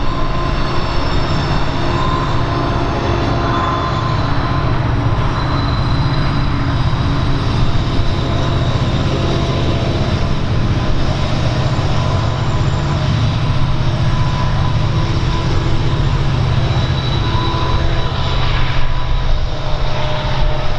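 Norfolk Southern intermodal freight train rolling past: a steady rumble of wheels on rail, with faint high wheel squeal coming and going and some clatter near the end.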